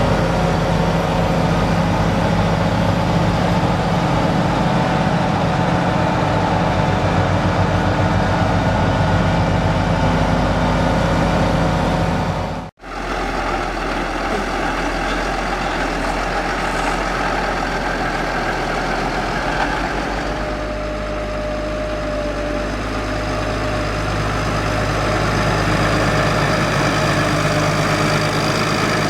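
Case IH Puma CVX tractor's diesel engine running steadily, with a sudden brief gap in the sound about 13 seconds in, after which it runs on with a slightly changed tone.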